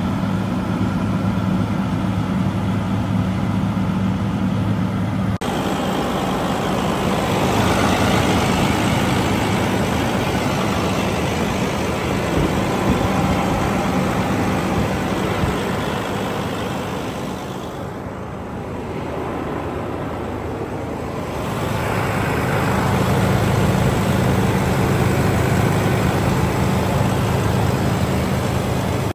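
Detroit Series 60 six-cylinder diesel of a heavy truck idling, a steady low hum. The sound turns noisier at a cut about five seconds in, dips around eighteen seconds, then the steady engine hum returns louder.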